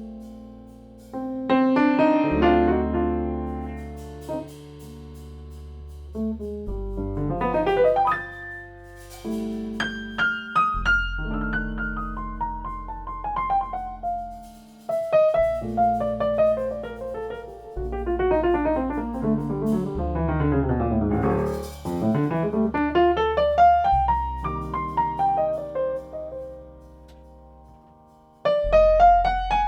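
Jazz piano playing a slow ballad: held chords over deep bass notes, changing every few seconds at an unhurried, uneven pace. Flourishes run through it, including a fast run sweeping down and back up about two-thirds of the way through. It falls nearly quiet just before a new chord near the end.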